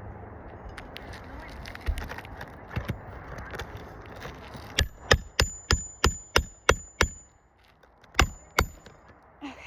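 A hammer drives a roofing nail into an asphalt shingle: a quick run of eight sharp strikes, about three a second, each with a metallic ring, then two more strikes a second later. Before that there are only light scuffs and taps.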